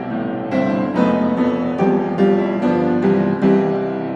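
Background piano music, a steady run of struck notes about twice a second.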